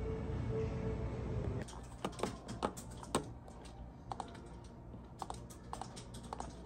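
Soft background music for about the first second and a half, then irregular clicks of a computer keyboard and mouse being used.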